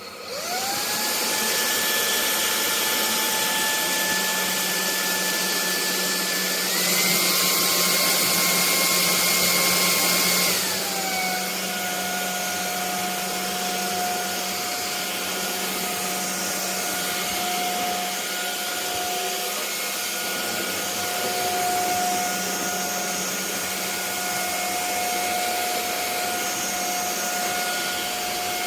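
Bulelink cordless stick vacuum's motor spinning up to a steady whine. About seven seconds in it shifts up to a higher, louder speed, and a few seconds later drops back to a lower pitch, where it keeps running.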